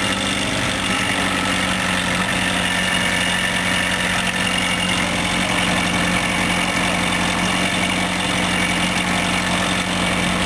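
Isuzu Bellett GT type R's 1.6-litre DOHC four-cylinder engine idling steadily, a noise that onlookers suspect may be abnormal.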